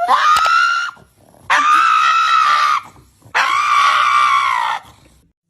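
A pug screaming: three long, high-pitched cries of a second or more each, with short gaps between them.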